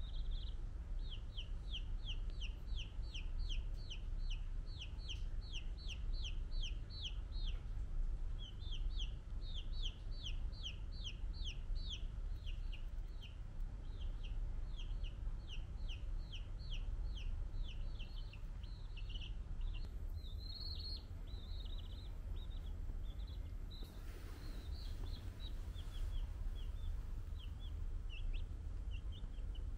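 A domestic chick peeping loudly and continuously, about three short high peeps a second, each falling in pitch; about halfway through the peeps become more scattered and uneven.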